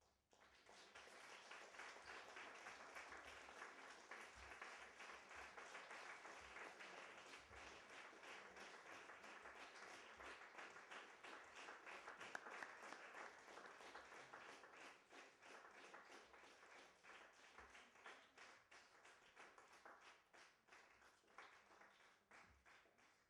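Audience applauding, beginning right as the music stops and thinning to scattered claps near the end.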